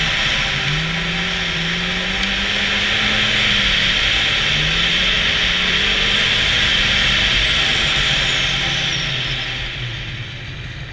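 Snowmobile engine running under way, its pitch rising and falling with the throttle over a steady hiss. It eases off and gets quieter near the end.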